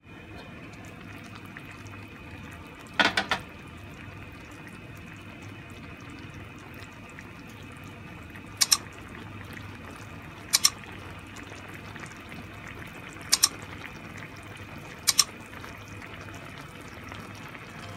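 Whole fish with onions, ginger and chillies simmering in broth in a pan, a steady bubbling hiss. Sharp brief clicks cut in five times, three together at first and then in pairs.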